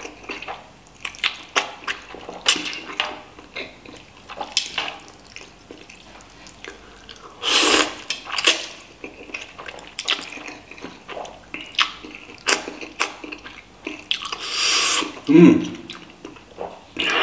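A person eating instant noodles in spicy broth: slurping and chewing, with many wet mouth smacks and clicks, and two longer slurps about halfway through and near the end.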